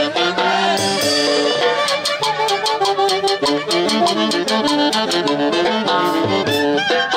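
Instrumental music from a traditional Andean folk orchestra: melody notes over a steady beat.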